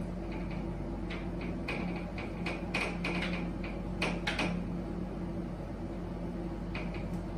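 Whiteboard duster being rubbed over a whiteboard to erase it: a run of quick scratchy wiping strokes, thickest in the first four seconds and again near the end.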